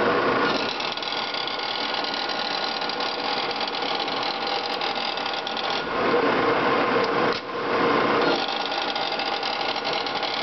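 Horizontal boring mill running under power, a steady mechanical whir with a gear whine from the spindle drive. It gets louder a little past halfway, dips briefly, then settles back.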